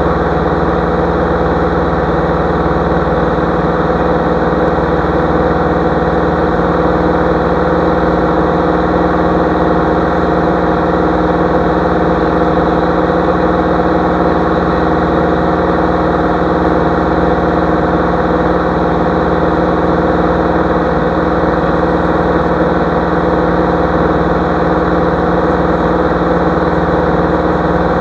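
Light aircraft's piston engine and propeller droning steadily at constant power in flight, heard from inside the cockpit.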